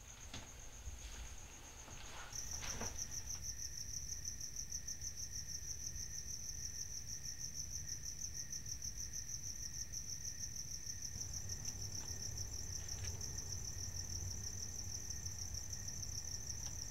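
Night-time chorus of crickets, a steady high pulsing chirr that gets louder about two seconds in.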